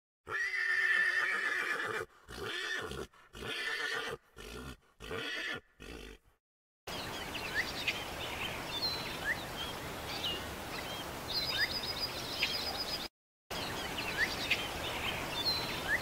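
A horse whinnies: one long call, then several shorter neighs broken off by pauses over the first six seconds. After a brief silence come steady outdoor hiss and birds chirping, short rising chirps with one quick trill.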